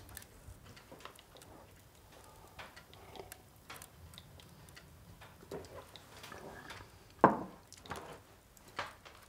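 Quiet room with scattered small clicks and light knocks of things being handled. About seven seconds in comes one louder knock, which fits a ceramic mug set down on a wooden counter.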